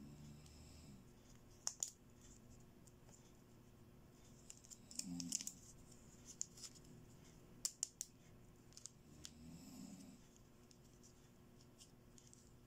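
Small plastic toy hair clips with bow tops clicking and tapping as they are handled and pulled apart, in a few quick groups of sharp clicks with light scraping between.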